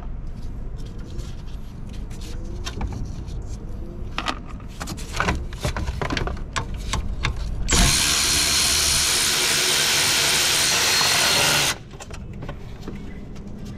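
Clicks and metal knocks from hand tools, then a power tool runs steadily for about four seconds and stops abruptly.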